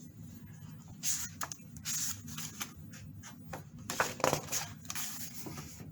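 Paper rustling as the pages of a picture book are handled and turned: a few short, soft rustles.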